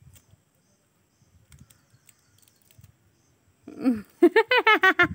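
A farm animal calling: one short note, then a rapid pulsing bleat of about half a dozen quick arching pulses, loud and about a second long, starting near the end.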